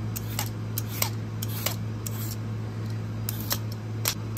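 A vegetable peeler scraping down celery stalks on a cutting board to strip off the stringy fibres: a run of short, crisp scrapes and clicks, about eight in all, over a steady low hum.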